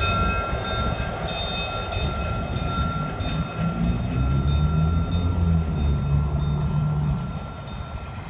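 Two diesel-electric locomotives running light on the rails, the engines rumbling with wheel and rail noise under a steady high squeal. The sound fades from about seven seconds in as the locomotives move away.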